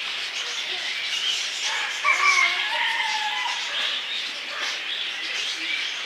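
Birds calling and chirping, with a louder run of short, pitched calls about two seconds in.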